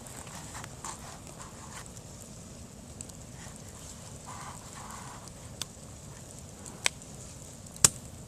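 Campfire crackling, with a handful of sharp snaps from burning bamboo. The loudest comes near the end: a small, wimpy pop of a bamboo section bursting from trapped steam.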